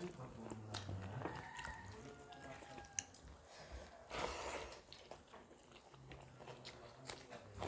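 People eating rice and fish curry with their hands: chewing, and fingers mixing rice on steel plates, with scattered small clicks and one sharp click about three seconds in.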